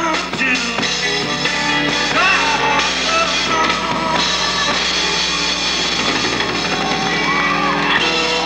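Rock band playing: drum kit and electric guitar with a singing voice, and a steady low hum under the music.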